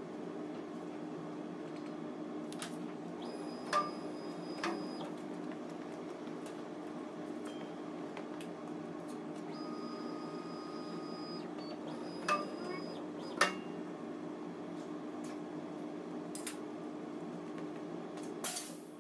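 Steel clinking and knocking a few times as box section is handled and lined up on a plasma cutting table, over a steady low workshop hum, with a short hiss near the end.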